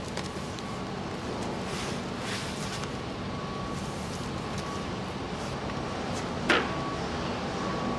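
Steady machinery hum of a factory floor, with soft scraping of cardboard boxes being shifted and stacked. One sharp bang about six and a half seconds in.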